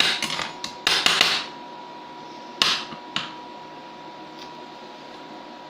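An ingot mould is being whacked to knock loose a stuck solder casting. There is a quick cluster of sharp metallic knocks in the first second and a half, then one strong knock and a lighter one shortly after.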